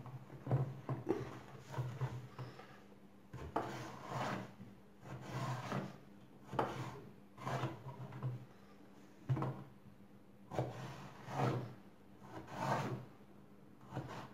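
Kitchen knife slicing peeled eggplant lengthwise on a wooden cutting board: a series of short scraping strokes as the blade cuts through and scrapes or taps the board, about one a second.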